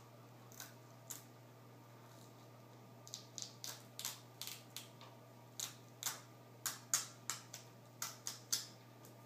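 Scattered sharp little clicks and crackles, a few at first and then several a second from about three seconds in, as fingers peel the adhesive tape off the LCD video cable connector on the back of a laptop screen panel.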